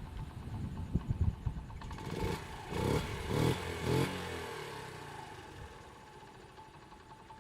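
Honda Z50J Monkey's small single-cylinder four-stroke engine idling unevenly, then blipped four times in quick succession about two to four seconds in, each rev rising and falling before it settles back toward idle. It is running after a carburettor overhaul and an exhaust-leak repair.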